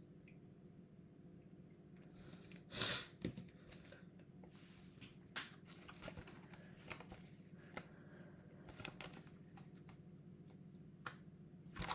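Paper banknotes rustling as they are handled and slid into the plastic pocket of a cash-envelope binder, with light handling clicks; the loudest rustle comes about three seconds in. A faint steady hum runs underneath.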